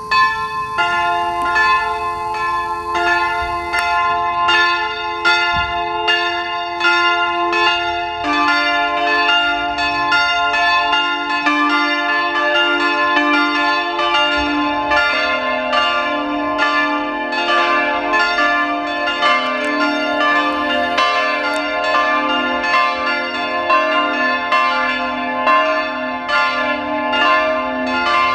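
Peal of church bells from an open concrete belfry: several swinging bells strike over and over in an overlapping, uneven rhythm, each stroke ringing on. A deeper bell joins about 8 seconds in, and another lower one about halfway through.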